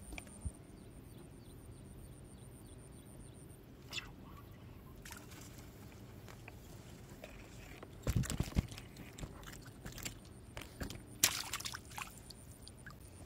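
Handling noises while a small tilapia is landed on a pole line: scattered soft knocks and rustles, with a louder cluster of bumps about eight seconds in and another brief burst a few seconds later.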